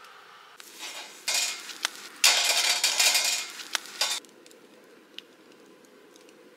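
Meat sizzling on a hot wire-mesh grill over a wood fire, with metal clinks against the grill, in loud hissing bursts that are strongest about two to three and a half seconds in, then falling away to a faint background with a few small crackles.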